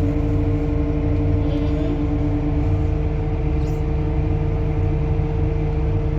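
Tractor engine running steadily under load, a low rumble with a steady hum over it; one pitch of the hum drops out about two and a half seconds in.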